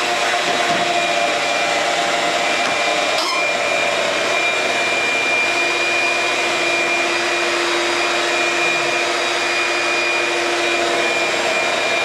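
Steady, loud whirring of a running machine, with a few steady tones in it and a single short click about three seconds in.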